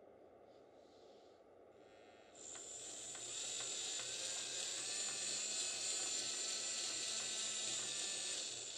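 Small fischertechnik electric motor with its gearbox whirring with a high whine, switched on by the controller about two and a half seconds in, growing louder over the next second or so and then running steadily.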